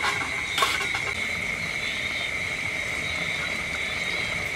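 A short clink of metal kitchen tongs against a metal tray about half a second in as tomatoes go into the pot, then a steady noise from the boiling, steaming aluminium pot on the charcoal stove, over a constant high-pitched whine.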